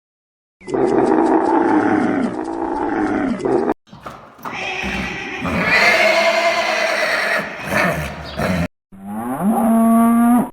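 Three separate loud farm animal calls, each cut off abruptly: first a long call with several harmonics, then a rougher, noisier bellow, then a shorter call that rises in pitch and holds steady.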